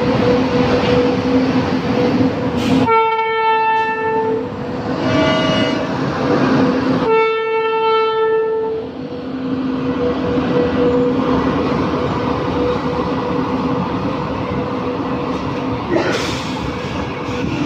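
Train at a station platform: the steady rumble and hum of the train, with two loud horn blasts, one about three seconds in and one about seven seconds in, each lasting under two seconds. A fainter, higher-pitched tone sounds between the two blasts.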